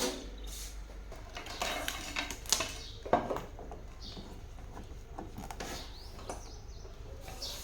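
Scattered light clicks and clinks of small hard parts and tools being handled, with a sharper knock about two and a half seconds in and another about three seconds in.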